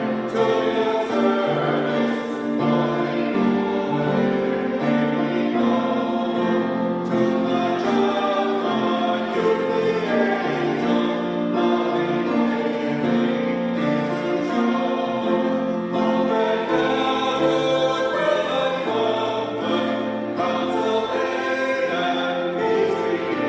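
A hymn sung by several voices with instrumental accompaniment, in held chords over a bass line that moves note by note.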